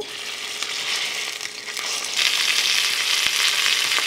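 Raw chicken breasts sizzling in hot olive oil in a stainless steel skillet: a steady frying hiss that grows louder about two seconds in.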